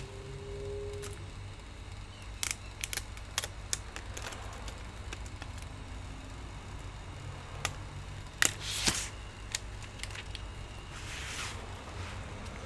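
Bench handling of an LCD panel and its clear plastic film: scattered clicks and taps with short crackling rustles over a steady low hum. The loudest is a brief rustle about eight and a half seconds in.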